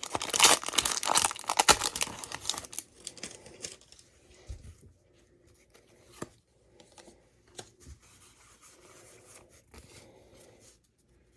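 Foil wrapper of a Pokémon Astral Radiance booster pack being torn open and crinkled, loud for the first three seconds or so. It then gives way to faint rustling and a few light clicks as the cards are handled.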